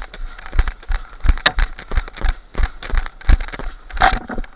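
Running footsteps crunching through dry leaf litter, an uneven series of thumps several times a second, with kit rattling. There is a louder rustle about four seconds in.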